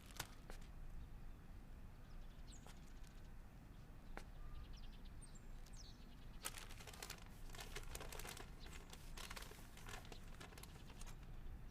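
Faint handling noises: scattered small clicks, light scrapes and paper-like rustling over a low room rumble, busiest about halfway through and again near the end.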